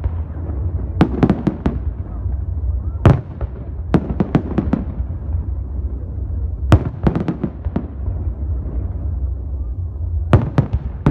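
Fireworks shells bursting overhead in quick clusters of sharp bangs, about five volleys one to three seconds apart, over a steady low rumble.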